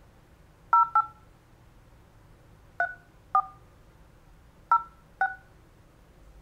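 Telephone keypad touch tones (DTMF): six short two-tone beeps in three pairs, keying in a six-digit verification code during an automated phone call. The tone pairs match the digits 0-8-3-4-0-6.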